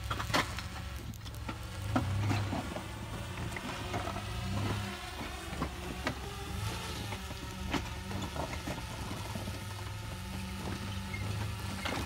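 Lifted 2017 Chevrolet Colorado ZR2 pickup crawling slowly over limestone rocks. Its engine runs at low revs and swells a few times with throttle. Scattered sharp knocks and cracks come from its 35-inch mud-terrain tyres and suspension working over the rock.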